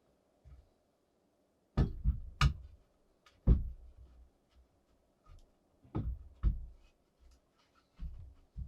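About seven heavy knocks at irregular intervals, several in pairs about half a second apart; the loudest comes about three and a half seconds in.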